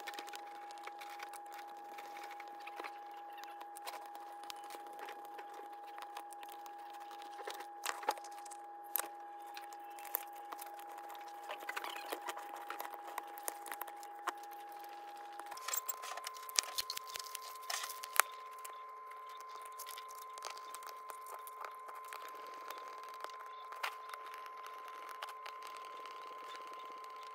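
Sped-up time-lapse audio of a Stanley PowerLock tape measure being taken apart and put back together by hand: scattered small clicks and rattles of the casing, screws and tape. Under them runs a steady high hum that steps up in pitch about halfway through.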